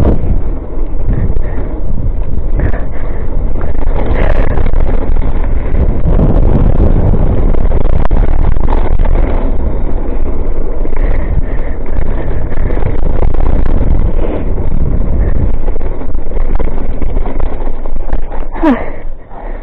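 Heavy wind buffeting on a helmet-mounted camera microphone over the rumble and rattle of a mountain bike riding down a rough dirt trail. The noise eases off near the end.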